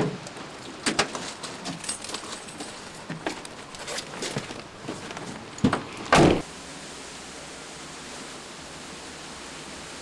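Van door handle and latch being worked: a run of clicks and knocks, then a loud door slam about six seconds in. A steady hiss follows.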